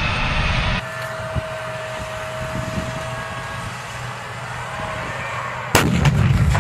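M1A2 Abrams tank engine running as the tank drives, cut off under a second in by a quieter hum with a steady whine from tanks standing in line. Near the end a tank's main gun fires one loud shot that rings on after it.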